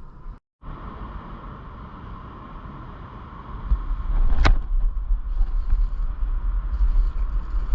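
Steady outdoor noise with a faint steady hum, cutting out completely for a moment just after the start; a low rumble on the microphone grows louder about halfway through, and a single sharp click sounds about halfway.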